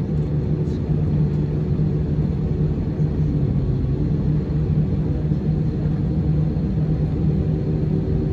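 Steady jet cabin rumble of an Airbus A320-232, its IAE V2500 engines running at a constant setting, heard from inside the passenger cabin. A low, even hum sits under the rumble, with no change in pitch.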